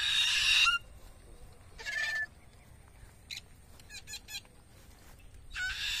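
Alexandrine parakeet screeching in flight: three loud calls, a long one at the start, a short one about two seconds in, and another long one near the end.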